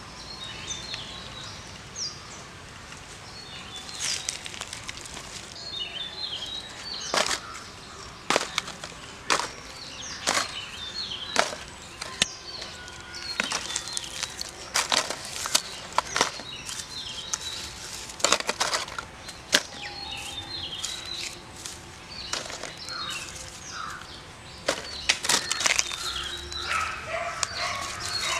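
Dry tamarind pods and dry leaves crackling and rustling in irregular snaps as they are picked up off the ground by hand and piled into a dry leaf, with birds chirping in the background.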